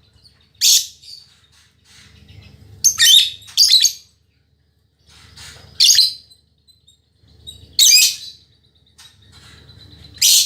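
Female lovebird calling in short, shrill chattering bursts, six of them spaced about one to two seconds apart, two in quick succession around three seconds in. It is the persistent, male-like calling of a 'fighter' female.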